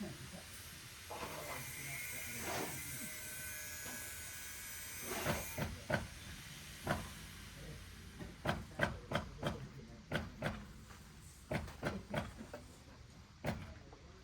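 A steady hiss for roughly the first five seconds, then a run of sharp, irregular knocks, one or two a second.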